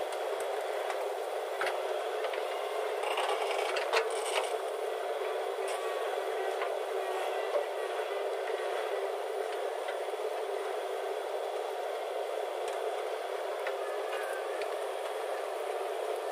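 JCB 3DX backhoe loader's diesel engine running steadily, with occasional short scrapes and clatters of the machine at work.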